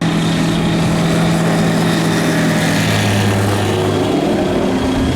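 Light aircraft's piston engine and propeller running close by, loud and steady, with the engine note shifting a little over halfway through.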